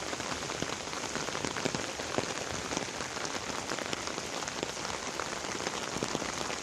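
Heavy rain falling steadily: an even hiss with many individual drops ticking close by.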